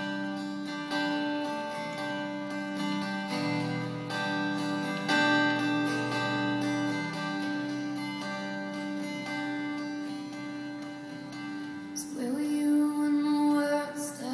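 Acoustic guitar picking an instrumental passage of a slow country ballad, notes ringing over one another. A woman's singing voice comes back in near the end.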